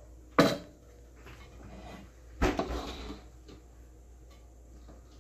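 Metal utensils and cookware clattering: a single sharp knock about half a second in, then a short run of clinks and knocks about two and a half seconds in.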